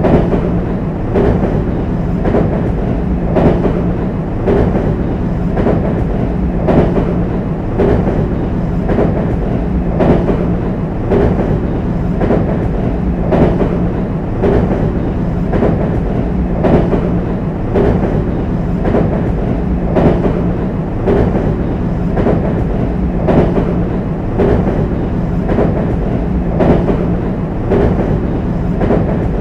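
JR West 225 series electric train crossing a steel railway bridge, heard from a middle car: a steady rumble with the wheels clacking over rail joints about once a second, every third clack a little louder.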